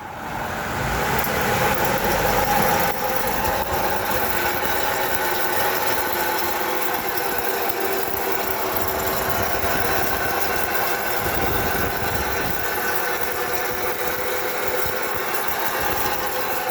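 Worn, dry wheel bearing on a Toyota Sienna droning steadily as the wheel turns, a continuous hum with a few wavering tones; the bearing has lost its grease and is running metal on metal.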